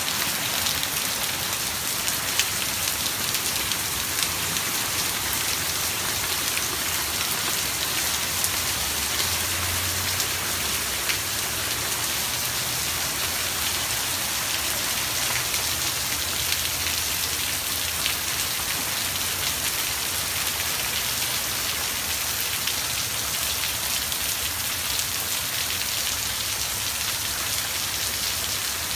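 Steady heavy rain falling on a concrete yard and leafy shrubs: a dense, even hiss full of fine drop ticks.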